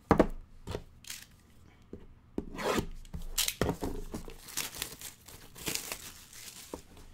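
Clear plastic shrink-wrap being torn and peeled off a sealed trading-card box, crinkling and rustling in irregular bursts that grow denser midway. It opens with a single sharp knock.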